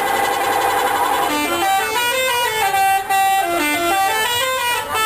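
Bus 'telolet' musical horn playing a tune: a jumble of overlapping held horn tones, then from about a second in a clear melody of short notes stepping up and down.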